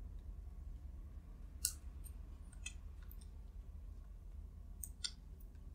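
A few sharp clicks and crackles from hands working adhesive tape around a post on a metal print-chain mandrel, the loudest about a second and a half in and two close together near the end, over a low steady hum.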